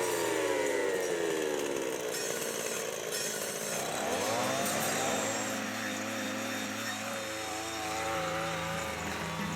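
Chainsaw running while cutting broom, its engine pitch dropping in the first couple of seconds, climbing again about four seconds in, and wavering near the end.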